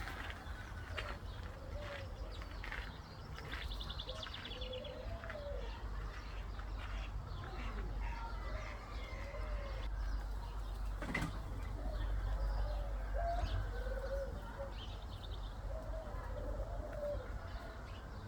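Soft, low bird calls repeated every second or two, each a short note rising and falling in pitch, over a steady low rumble, with scattered light clicks and one sharper click about eleven seconds in.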